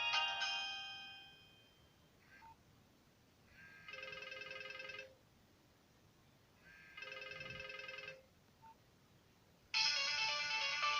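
Nokia 1200 mobile phone ringtones playing through the phone's speaker: one melody fades out in the first second and a half, then two short ringing bursts of about a second each sound a few seconds apart, and a new, busier melody starts suddenly near the end.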